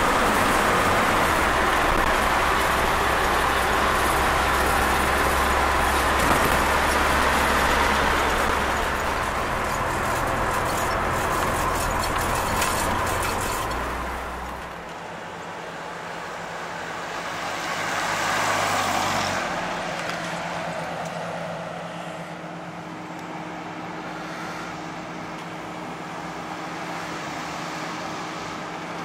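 1936 Chevrolet pickup's transplanted 2.5L four-cylinder engine running steadily under way, with road and wind noise as heard from the cab. About halfway through the sound drops to a quieter, steady engine hum, with one brief swell in between.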